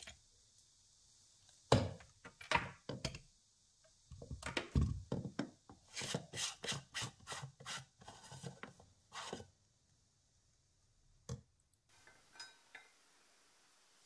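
Hard plastic knocks, clicks and rubbing as a small electric blade grinder is taken apart by hand: the cup twisted off its base and the blade lid lifted off the ground powder. A dense run of irregular knocks lasts from about two seconds in to about nine and a half, then one more knock and a few faint ticks.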